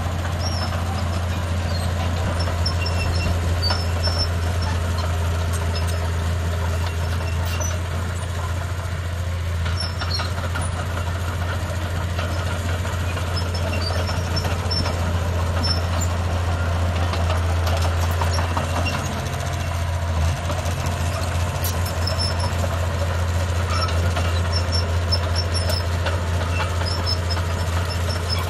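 Komatsu D31P crawler bulldozer's diesel engine running steadily with a strong low hum as the dozer travels on its tracks, dipping briefly about two-thirds of the way through.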